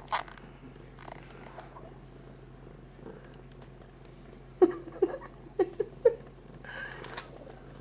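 Ragdoll cat purring steadily, with several short, quick pitched cat calls around the middle and a brief scratchy noise near the end.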